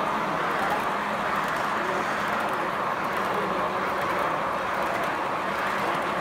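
G-scale model train passing close by at speed, with a steady whir of its motors and wheels rolling on the track, over a faint murmur of voices.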